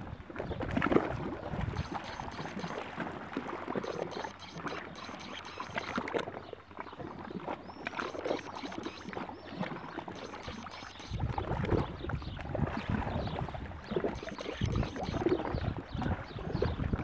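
Small sea waves lapping and splashing irregularly against a concrete seawall, with a low rumble of wind on the microphone joining about eleven seconds in.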